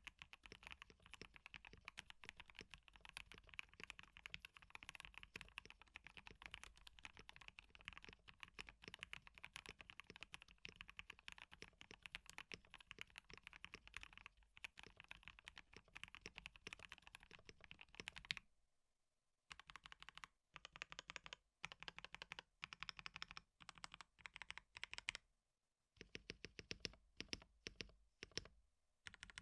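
Typing on a KBD67 Lite mechanical keyboard with Gateron Ink Black V2 linear switches, dampened with case foam and car foam. Fast, continuous keystrokes run for about eighteen seconds, then after a short pause come several shorter bursts of typing.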